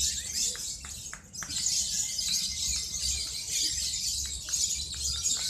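Lovebirds singing at once in a continuous shrill, high-pitched chatter, with many short sharp chirps mixed in. This is the long trilling 'ngekek' song that contest lovebirds are judged on.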